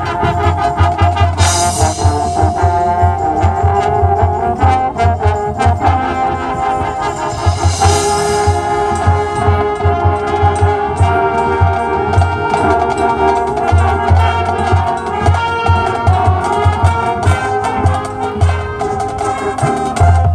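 High school marching band playing its field show: brass ensemble carrying the melody over marching percussion with a steady low drum beat. Two bright crashes ring out, about a second and a half in and again about eight seconds in.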